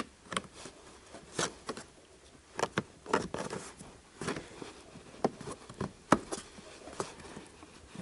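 Light, irregular clicks and taps of a hard plastic seat trim cover being handled and worked into place by hand.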